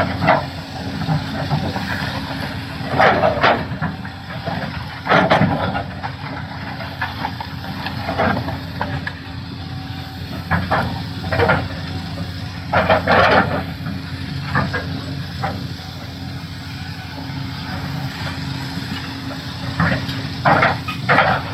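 Doosan DX390 excavator's diesel engine running steadily under load, with short scrapes and knocks of the bucket against rock every one to three seconds.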